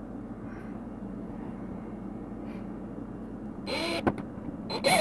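Cordless drill with a long hex bit driving a screw, in two short bursts near the end, the motor pitch rising and falling with each pull of the trigger.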